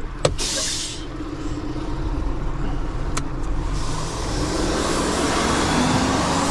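Flatbed tow truck's engine idling steadily, with a short hiss about half a second in and a sharp click about three seconds in.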